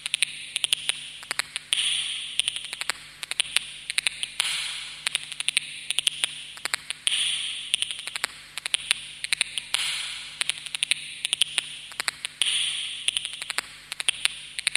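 Sound-effect opening of a dance performance's backing track: sharp, irregular clicks and ticks over a hissing swell that starts suddenly and fades, returning about every three seconds.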